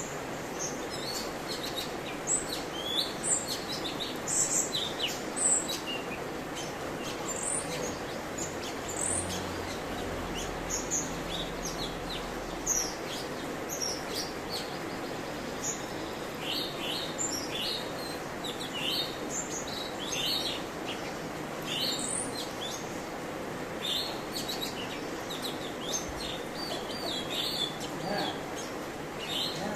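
Cucak cungkok singing a long run of quick high chirps and short sweeping notes, over a steady background hiss. The notes come thickest and loudest in the first few seconds.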